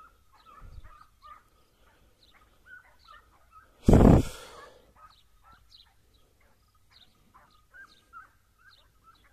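Distant hunting hounds giving tongue on a hare's trail, a steady run of short yelps and bays. A brief loud burst of noise about four seconds in.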